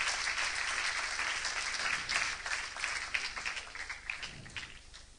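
Audience applauding: many hands clapping together, thinning to a few scattered claps from about three and a half seconds in and dying away near the end.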